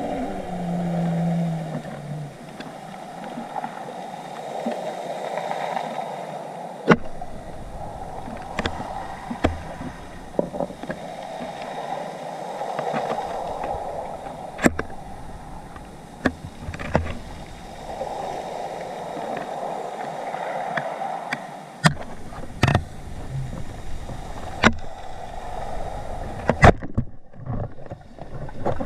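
Underwater sound through a speargun-mounted camera: a steady rush of water that swells and fades every few seconds, with about ten sharp clicks and knocks scattered through it, bunched from about seven seconds in.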